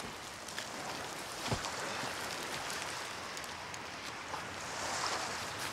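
Steady wash of surf on a rocky shore, swelling slightly about five seconds in, with a few faint clicks.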